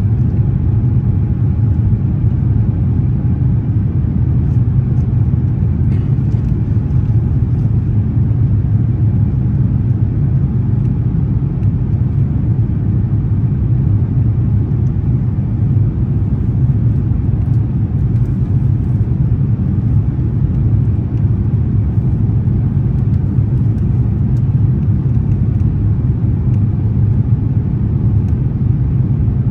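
Steady low rumble of a jet airliner in cruise, engine and airflow noise heard from inside the passenger cabin.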